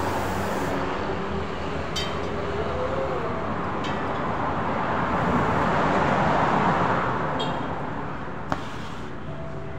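Steady rushing traffic noise that swells and fades around the middle, with a few light metallic clinks.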